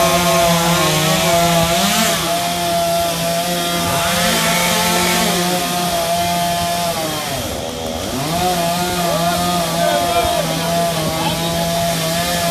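Chainsaw running at high speed, its pitch sagging briefly a few times, about two, four and eight seconds in, as it bites into wood.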